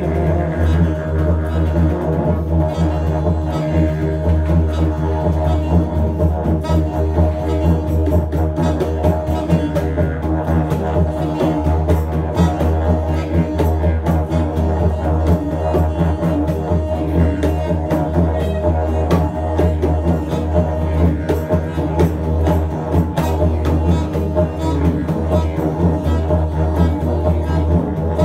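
Live ensemble of tuba, saxophone and congas playing over a steady low drone, with light hand-drum taps.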